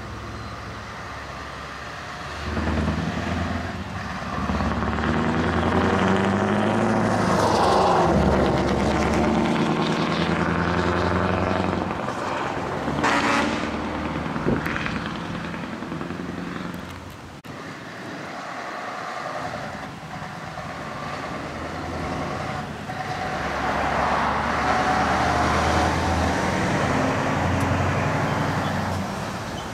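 Heavy trucks driving past at close range one after another, their diesel engines getting louder and then fading as each goes by. There is a brief sharp sound about halfway through and a quieter spell after it.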